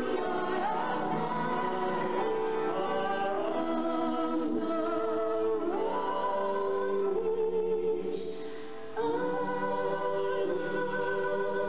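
A man and a woman singing a slow musical-theatre duet with instrumental accompaniment, the voices holding long notes. The music dips briefly about eight seconds in, then a long held note begins.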